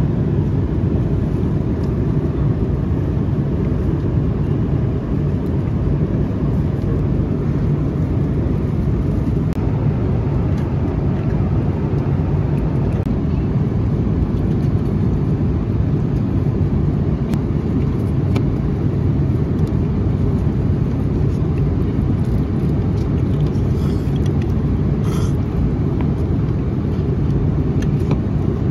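Steady low rumble of a vehicle in motion, holding an even level throughout.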